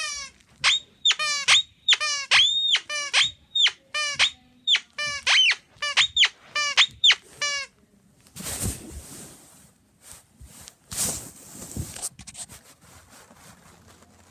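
Guinea pig squeaking: a quick run of short, high squeaks, each bending up and then down in pitch, about two a second. After about eight seconds they stop and give way to a few seconds of rustling.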